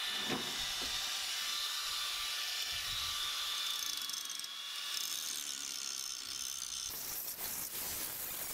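Angle grinder running with a steady high whine as its abrasive disc grinds weld beads off a steel railroad-track anvil. The sound turns rougher and noisier about seven seconds in.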